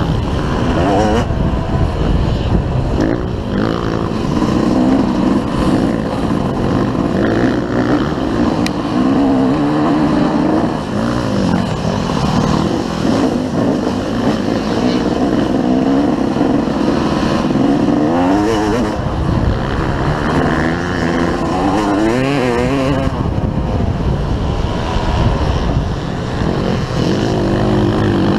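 Off-road racing motorcycle engine heard from a camera mounted on the bike, loud throughout, its pitch rising and falling as the rider revs and shifts through the corners and straights of a dirt track.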